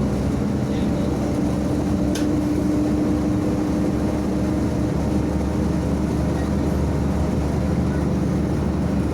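Cabin sound of a MAZ 105 articulated city bus under way: a steady rumble of engine and running gear with a constant tone through it. A single short click about two seconds in.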